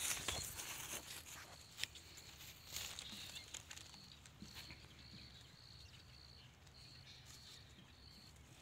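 Dry straw and stubble rustling and crackling as a person moves over it and handles it, with a few small clicks in the first three seconds, then dying away. From then on a faint high chirp repeats in short pulses.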